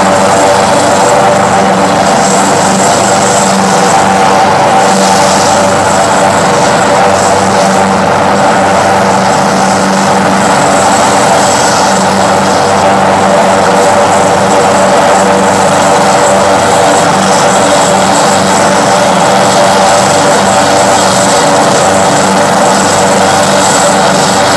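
Military helicopter running on the ground, its engines and rotor giving a loud, steady hum and whine that holds one pitch throughout.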